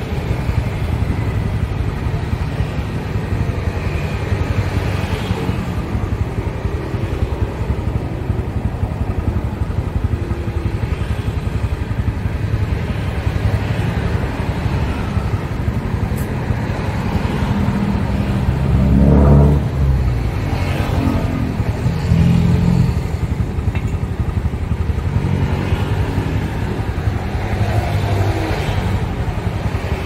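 Steady low rumble of motor vehicle engines running, swelling louder twice about two-thirds of the way through.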